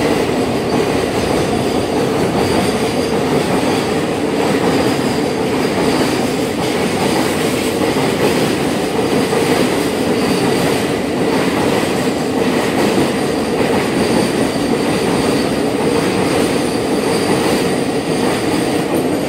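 Loaded container freight wagons rolling past at speed: a steady, loud rumble of steel wheels on the rails with rail-joint clatter and a faint, steady high-pitched whine from the wheels.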